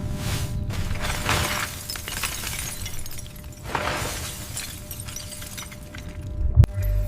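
Dramatic sound effects of crashing and crackling, like breaking debris, in noisy swells over a music bed, with a sharp hit and low thud near the end.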